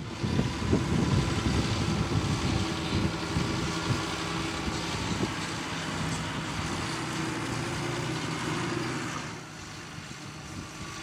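John Deere 6210R tractor's six-cylinder diesel engine running steadily as it pulls a potato ridger past. The sound falls off about nine seconds in as the tractor moves away.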